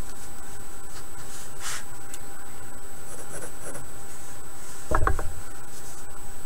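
Pencil scratching on paper in a few short strokes as straight lines are drawn, over a steady background hiss and hum. A louder thump about five seconds in.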